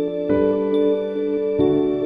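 Background music of long held chords, changing to new chords about a third of a second in and again near the end.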